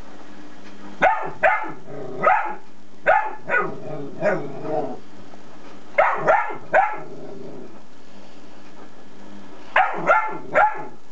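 A dog barking in four bursts of three or four barks each, with pauses of a second or more between bursts, over a steady low hum.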